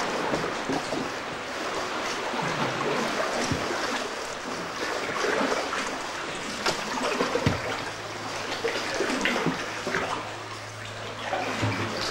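Sea water lapping and splashing against the rock walls of a sea cave, with irregular small slaps and trickles. A low steady hum joins about halfway through.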